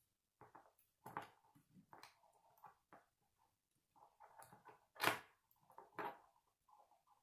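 Plastic K'nex rods and connectors clicking and rattling as they are handled and snapped together, in irregular small clicks with a louder click about five seconds in.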